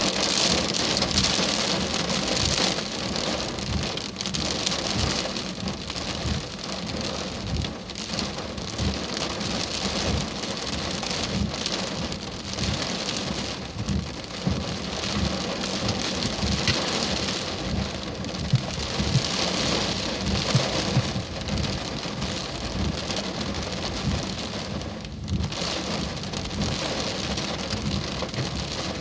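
Heavy thunderstorm rain pouring down, a dense steady hiss, with many drops striking a surface close to the microphone as short thuds, and a few sharper hits past the middle.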